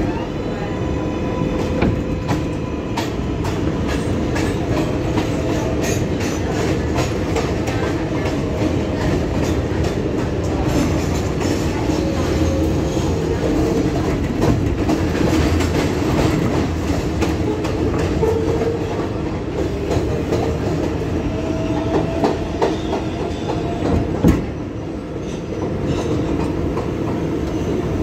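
A Kawasaki R188 subway car running between stations, with a steady rumble and wheels clicking over rail joints. The propulsion motors' faint whine rises in pitch about three-quarters of the way through, just before a single loud knock.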